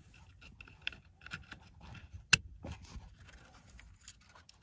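Small plastic wiring connectors being handled and fitted to a steering-column multifunction switch: light clicking and scraping, with one sharp click a little past two seconds in.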